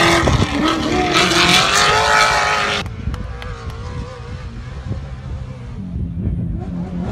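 Off-road trophy truck engine at high revs as the truck races past over dirt, its pitch rising and wavering with the throttle. It cuts off abruptly about three seconds in. After that comes a quieter stretch, and then the engine is heard again, growing louder as the truck approaches near the end.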